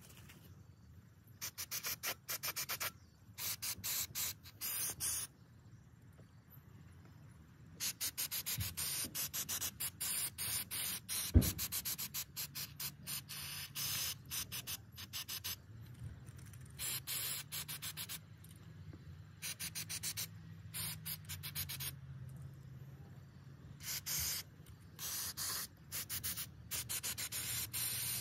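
Aerosol can of carburetor cleaner spraying in repeated short bursts of hiss onto a small ATV carburetor. There is one sharp knock about eleven seconds in.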